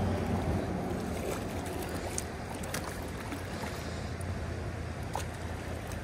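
Steady rushing noise of creek water, with a few faint splashes from a hooked trout thrashing at the surface.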